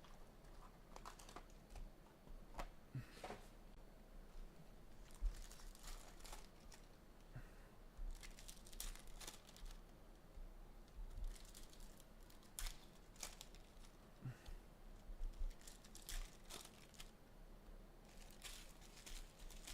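Trading card pack wrappers being torn open and crinkled, with cards being handled, in quiet, irregular crackles and rustles.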